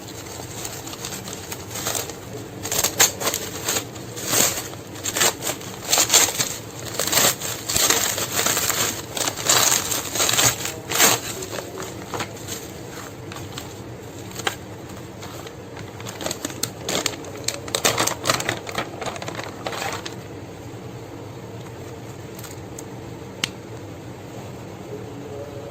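Packaging being handled during an unboxing: dense crinkling and clicking from about two seconds in until about twenty seconds, after which only a steady low hum remains.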